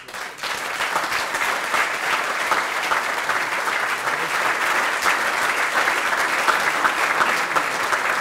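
An audience of a few dozen people applauding, a dense steady clapping that swells up within the first second and keeps on without a break.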